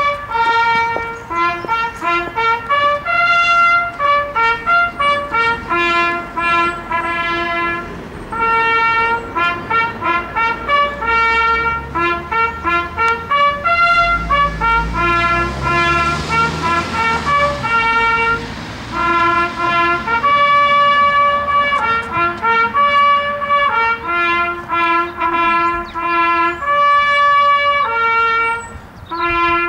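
A single trumpet plays a slow solo call of separate held notes. A low rumble passes underneath in the middle.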